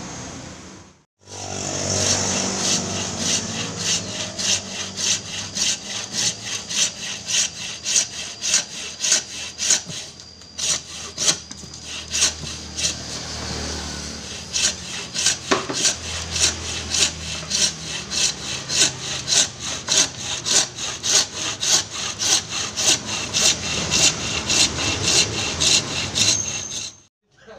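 Thin-bladed frame saw cutting across the end of a sapodilla-wood knife sheath, in steady back-and-forth strokes about two a second, pausing briefly twice near the middle.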